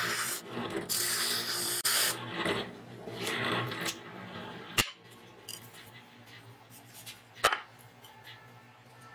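Wood being sanded against the drum of a homemade oscillating spindle sander, a rasping scrape in bursts over the first four seconds or so. After that only the sander's low hum remains, with two sharp knocks, about five seconds in and again two and a half seconds later.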